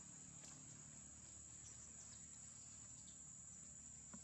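Faint, steady high-pitched drone of insects, with a few soft high chirps and a small click near the end.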